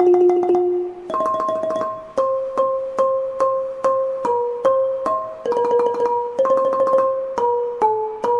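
Instrumental background music: evenly repeated struck notes, about two a second, stepping through a simple tune.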